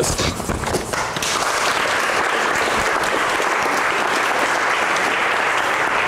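Audience applauding: scattered claps at first that fill in within about a second to steady clapping from many people.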